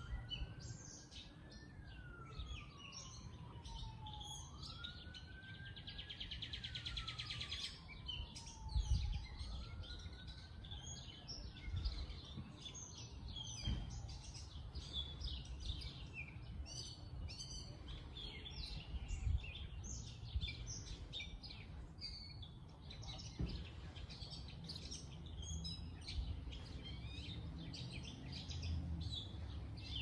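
Many small birds chirping and calling over a low rumble. During the first half a fainter tone slowly rises and falls three times, then fades out.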